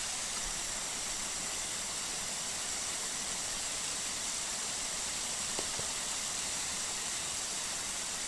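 Steady hiss, with one faint click about five and a half seconds in.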